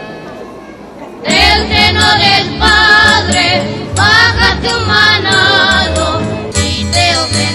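Music: a Christmas song, with voices singing over instrumental backing. The singing comes in about a second in, after a fading note.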